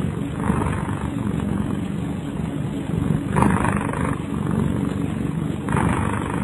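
A domestic cat snoring: a continuous rough low rumble, with a breathier swell about every two to three seconds, three times.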